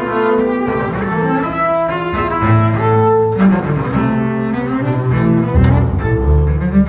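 Two double basses bowed in a duet: one plays a low line of held notes while the other carries a higher melody, the notes changing about every second.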